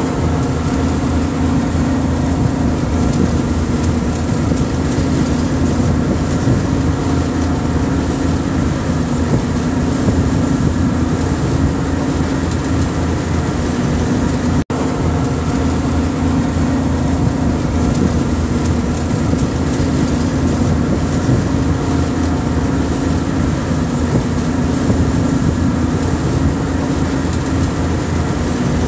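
Steady engine and road noise of a moving vehicle, with one brief dropout about halfway through.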